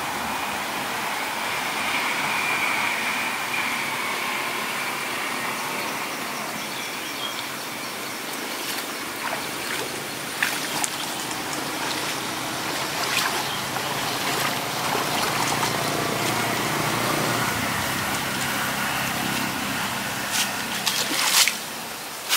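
Water sloshing and trickling as a person wades through a shallow muddy pond, over a steady hum of distant road traffic. There are a few sharp clicks and splashes, most of them near the end.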